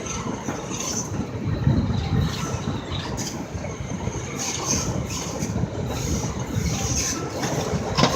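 A Metro-North commuter train running on the rails with a steady rumble and short high squeals from the wheels.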